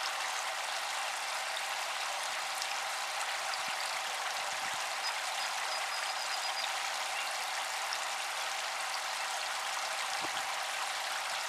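Spray from a small solar-powered fountain pump falling back onto a pond's surface: a steady, continuous patter and splash of water, with a faint steady hum beneath it.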